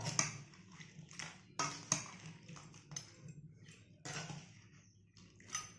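Steel ladle clinking and scraping against a stainless-steel kadai and plate while crab curry is served. There are a few separate sharp clinks: one at the start, two close together about a second and a half in, and one near the end.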